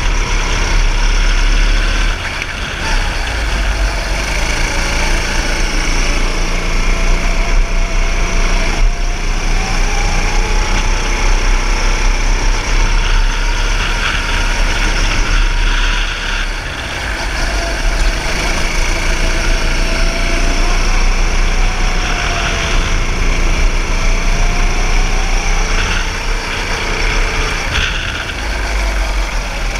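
Go-kart engine running hard on track, its note rising and falling with the throttle. The level drops briefly about halfway through and again near the end.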